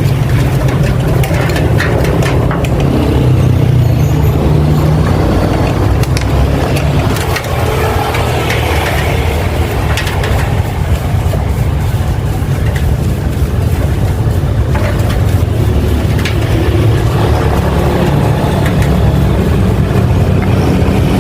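An engine idling steadily, with scattered clicks and knocks over it.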